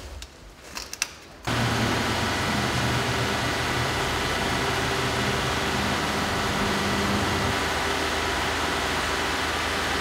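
Faint room sound with a couple of light clicks. About a second and a half in, it cuts to a steady mechanical hum with a low drone under an even noise; part of the drone drops out about seven and a half seconds in.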